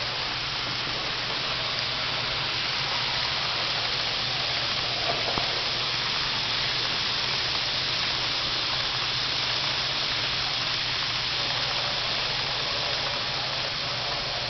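Steady, even hiss with a low hum underneath, unchanging throughout, with a single faint tick about five seconds in.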